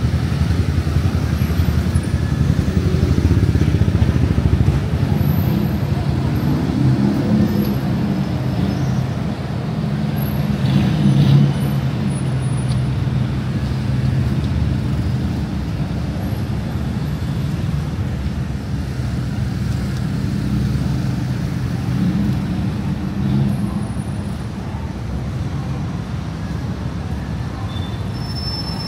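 Heavy city road traffic: cars and buses running past in a steady low rumble, with one vehicle's engine louder about ten seconds in, and passers-by talking.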